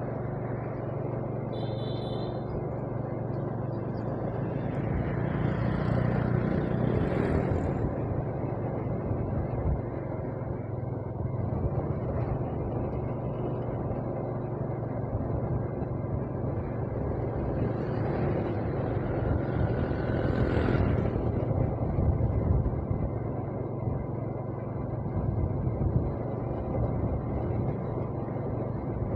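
A motor vehicle running steadily on the road: a low engine hum under road and wind noise. The noise swells twice, about five seconds in and about twenty seconds in, and there is a brief high chirp about two seconds in.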